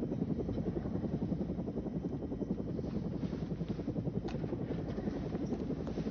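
Helicopter engine and rotor heard from inside the passenger cabin: a steady drone with a rapid, even pulsing.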